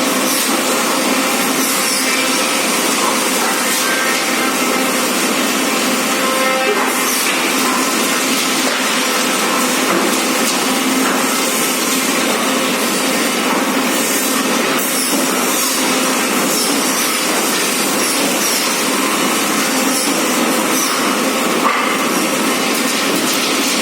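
An engine running steadily at a constant speed, heard as a loud, even mechanical noise with no break or change.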